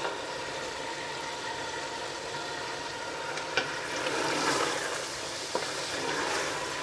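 Beef chunks sizzling in hot oil in a stainless steel pot, stirred with a wooden spatula as the meat browns. The sizzle swells with the stirring about two thirds of the way in, and the spatula knocks sharply on the pot twice.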